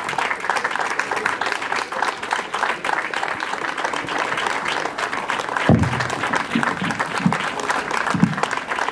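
Audience applauding steadily, with a few short low sounds in the second half.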